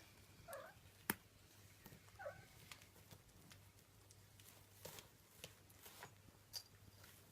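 Faint scuffling and scattered light taps and clicks of three-week-old Siberian kittens playing, with two brief faint squeaks about half a second and two seconds in, over a low steady hum.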